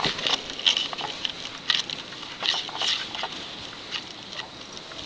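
A person's short, breathy hissing sounds, several in quick irregular succession.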